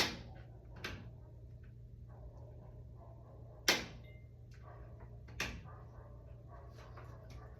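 A few sharp clicks and knocks from handling, the loudest about three and a half seconds in, over a steady low hum.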